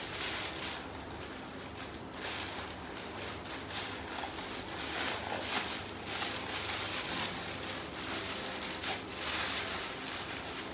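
Plastic wrapping being pulled off a resin statue, rustling and crinkling irregularly.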